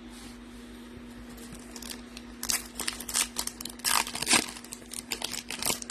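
Crinkling and tearing of a Topps Chrome foil pack wrapper being handled and ripped open, in irregular crackles that start about two seconds in, over a faint steady hum.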